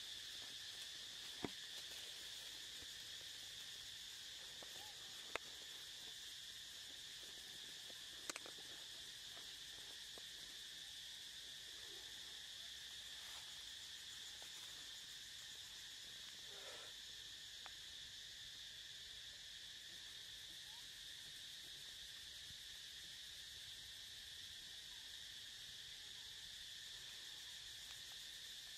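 Faint, steady high-pitched drone of insects, with a few sharp clicks in the first ten seconds.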